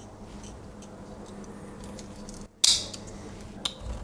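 Small clicks from a Victorinox Huntsman Swiss Army knife being handled, with one sharp, bright metallic click about two and a half seconds in and a smaller click near the end.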